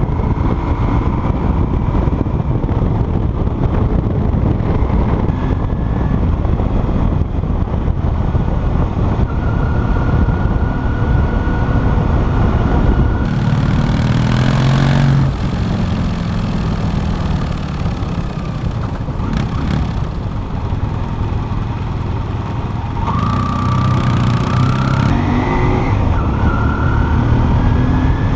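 Yamaha motorcycle under way: engine and exhaust running with heavy wind rumble, the engine pitch rising and falling as it accelerates, with climbs a little past halfway and again near the end.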